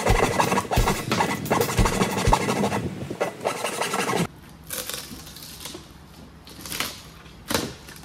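Thin hardboard panel being flexed and handled, scraping and rubbing with a few low knocks. The handling is busy for about four seconds, then drops suddenly to a few sparse scrapes.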